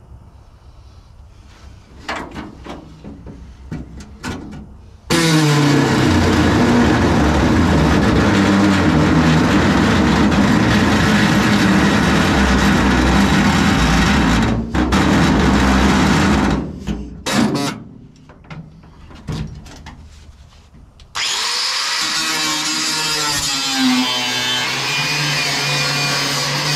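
Angle grinder cutting the steel floor of an old pickup's cab. It runs loud and steady for about twelve seconds from about five seconds in, then after some knocks and clanks of handling it starts again and cuts on, its motor tone wavering under load.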